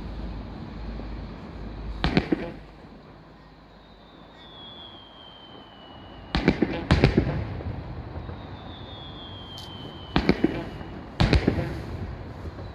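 Aerial fireworks shells bursting with sharp bangs, several in close succession. Two of the bursts are each preceded by a whistle that falls in pitch.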